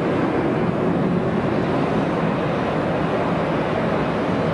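Jet engines of a four-engined airliner climbing out after takeoff: a steady, even rush of engine noise with no change in level.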